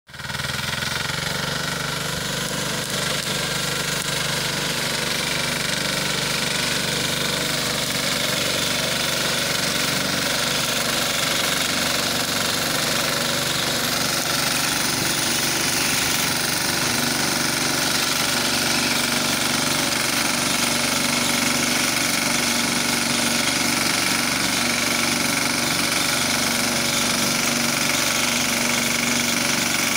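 BCS four-wheel reaper binder running steadily under load as it cuts standing wheat: the engine driving the reciprocating cutter bar.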